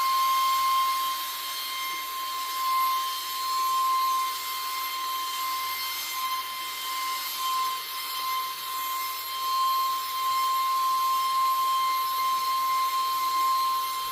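GM Bear 1024 vacuum cleaner (650 W) running: a steady high-pitched motor whine over a rushing hiss of air, its loudness swelling and dipping every few seconds.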